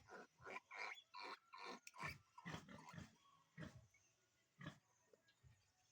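Pigs grunting: a quick run of short grunts for about three seconds, then only a few scattered ones.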